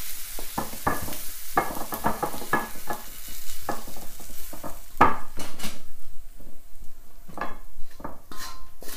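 Wooden spatula scraping and knocking against a wok as sticky glazed pork ribs are pushed out into a ceramic dish, over a faint sizzle that dies away in the first few seconds. Near the end a clink rings briefly.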